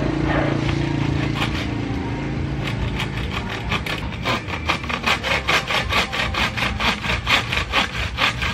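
Hacksaw cutting through a green bamboo stem in quick, regular back-and-forth strokes, about three to four a second, settling into a steady rhythm about three seconds in. A low steady hum fades away over the first two seconds.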